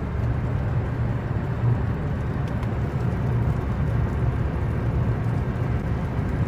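Steady road noise of a car driving, heard from inside the cabin: a low rumble of engine and tyres, with a few faint ticks.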